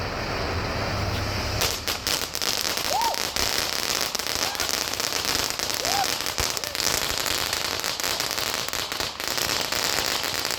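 Fireworks going off: a steady hiss, then from about a second and a half in, a dense, rapid crackling that keeps going.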